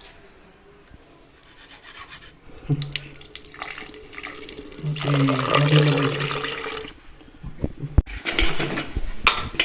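Milk being poured into the egg and garlic mixture, liquid splashing into a container. A few sharp knocks come about eight seconds in.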